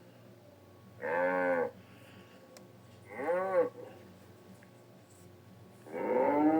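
Wildebeest sound-effect calls, deep moo-like lowing: a short call about a second in, a shorter one that rises then falls around three seconds in, and a longer call starting near the end.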